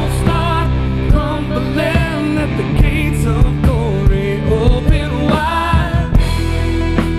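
Rock band music with a lead singer: a sung vocal line over drums, bass and guitar.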